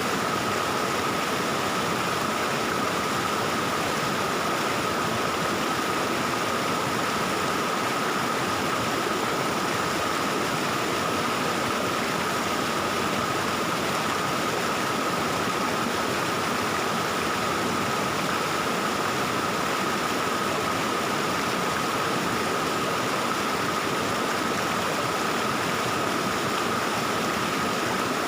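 Valley stream flowing steadily, an even rush of water with a thin steady tone running through it.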